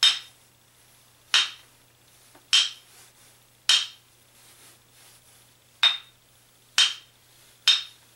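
A bench grinding wheel that was broken and glued back together, tapped with a screwdriver's plastic handle while hanging on a second screwdriver: seven short taps, four about a second apart, a pause, then three more. Each gives a dull thud rather than a clear high-pitched ring, the sign of a cracked wheel that fails the ring test and is unsafe to run.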